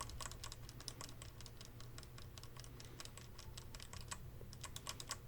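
Redragon Kumara mechanical keyboard's Outemu Red linear switches pressed over and over, a fast, uneven run of faint clicks.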